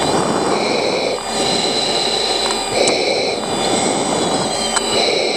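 Single-engine F-16 fighter jet in flight, heard from the cockpit: a steady rush of jet engine and airflow, with faint high-pitched tones coming and going every second or so.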